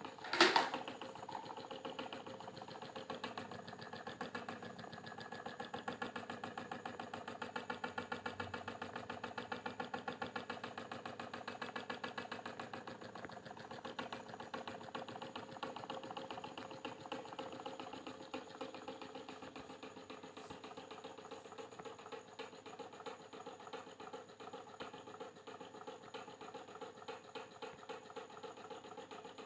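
Electric fan running with a fast, even mechanical ticking over its hum: the strange noise the fan has developed. A single sharp knock sounds about half a second in.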